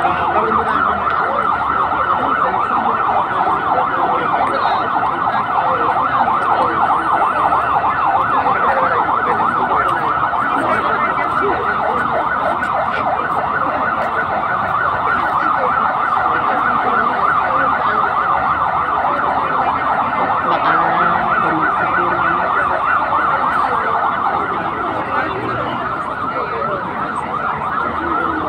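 Electronic siren sounding without a break in a fast warble, its pitch rising and falling many times a second. It gets a little quieter near the end.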